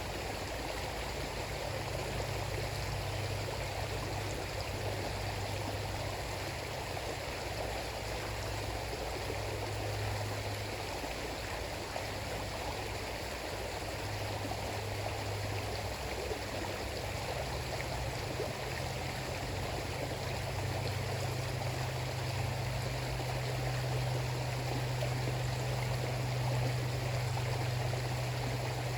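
River water flowing steadily, a continuous rushing with a low rumble underneath that grows stronger in the second half.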